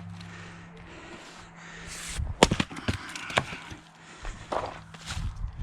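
Wood being chopped: a low steady hum stops a little over two seconds in, then comes one sharp, loud strike followed by a few lighter knocks.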